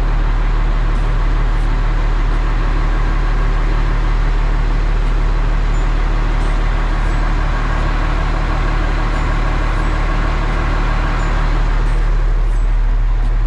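Large harvest machinery running steadily: a deep, constant engine hum with a mechanical rumble over it. The low hum drops a little near the end.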